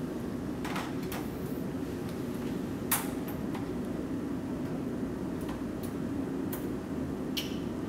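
Small metallic clicks and taps of washers and hex nuts being threaded by hand onto a busbar end feed's terminal studs, with the sharpest click about three seconds in. A steady low hum runs underneath.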